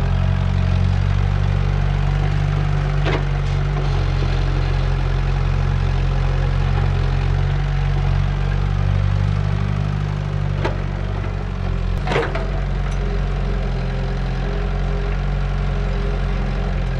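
Kobelco hydraulic excavator's diesel engine running steadily under load as it works earth and broken rock. Three sharp knocks of rock striking the steel bucket or tracks stand out, several seconds apart.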